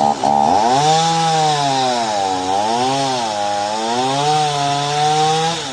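Two-stroke chainsaw running at high revs while cutting wood; its engine note sags twice and climbs back as the chain bites.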